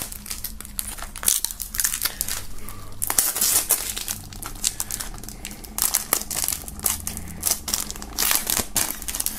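Plastic shrink-wrap film being peeled and pulled off a CD jewel case, crinkling and crackling in irregular bursts.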